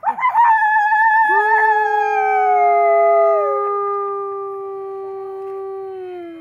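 Wolf howling: one long, steady howl that begins about a second in and slides down in pitch near the end. A second, higher wavering howl overlaps it for the first few seconds and drops away.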